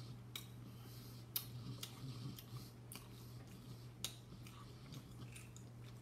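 Faint eating sounds: chewing with scattered sharp clicks of utensils against the food or plate, over a steady low hum.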